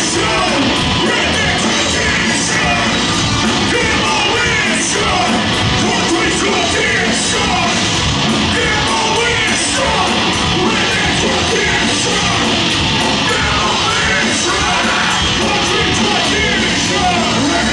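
Live heavy metal band playing loud with electric guitars, bass and drums, a vocalist yelling over it. A bright high accent recurs about every two and a half seconds.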